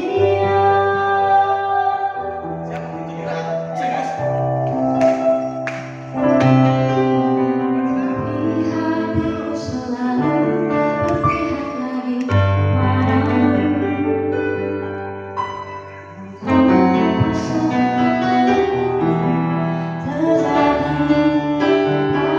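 A vocalist singing a slow pop ballad, accompanied by an electric keyboard playing sustained piano-like chords over a low bass line.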